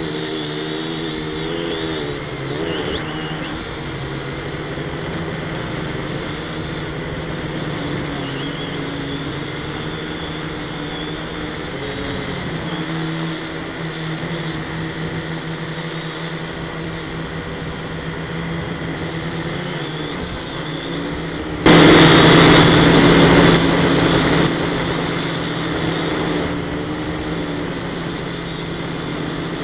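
Toy quadcopter's motors and propellers whining steadily, heard from its onboard camera, the pitch dipping and rising briefly as it is steered. About three quarters of the way through, a much louder rush comes in suddenly for about two seconds, then fades back to the steady whine.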